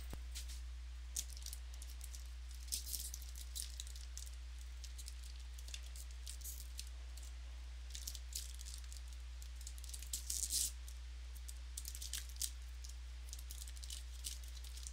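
Football trading cards being handled and flipped through by hand: scattered crisp clicks and rustles of card stock, bunched in several short flurries, over a steady low hum.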